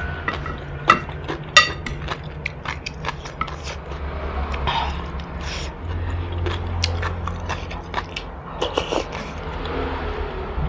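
Close-miked chewing of noodle soup, with wet mouth clicks and the sharp clinks of chopsticks and a metal spoon against a ceramic bowl; one clink about a second and a half in rings briefly.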